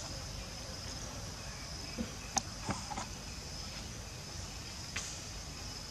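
Steady high-pitched drone of insects in the forest, with a few faint short clicks about two to three seconds in and once more near the end.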